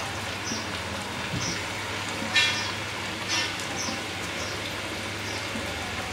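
Flour-coated chicken pieces deep-frying in a pan of hot oil over medium heat: a steady sizzle, with louder crackling pops about two and a half and three and a half seconds in.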